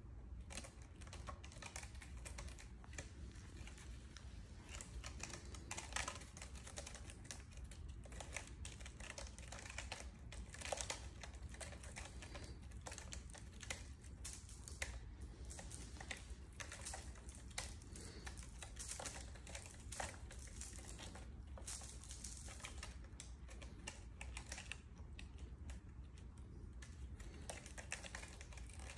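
Kittens' claws catching and scratching on the sisal rope of a scratching post as they climb it: a continuous run of faint, irregular clicks and scratches.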